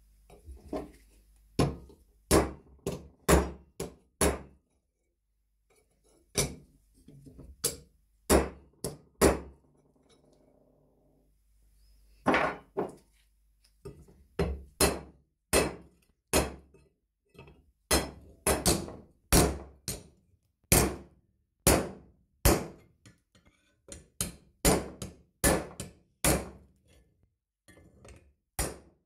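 Hammer striking a rusty steel strap on a small steel anvil, dozens of sharp metallic blows in quick runs as the bent strap is beaten flat. The blows pause twice, about five and ten seconds in, before resuming steadily.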